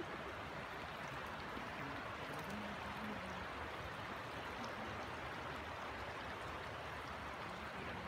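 The Ara river flowing over shallow gravel riffles: a steady rushing of water.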